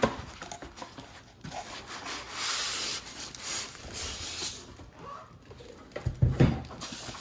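Cardboard box and packaging rubbing and sliding as a scanner in a plastic bag and foam insert is pulled out of its box, with a few low thumps about six seconds in as the foam-packed scanner is set down on the table.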